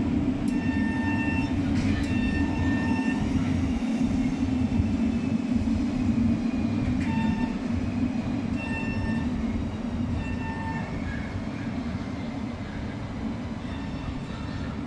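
Tatra T3 trams standing in a queue with a steady low electric hum, while short, clear pitched tones sound in pairs several times. Near the end a tram moves off along the rails.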